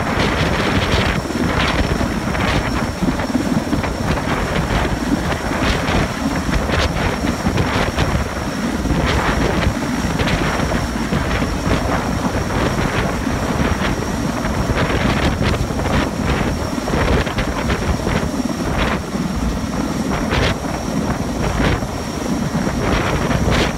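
Erickson S-64 Air-Crane heavy-lift helicopter hovering overhead: a loud, steady rotor and turbine noise with a thin high whine over it.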